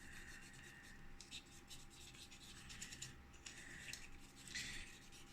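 Faint rubbing strokes of a cotton swab wiping dust off a graphics card, in several short spells of scratchy hiss.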